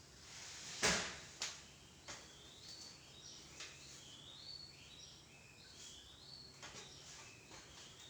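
A sharp knock about a second in and a second, smaller one just after, followed by a few faint clicks. Through the middle, a run of short, high whistled notes stepping up and down in pitch, like birdsong.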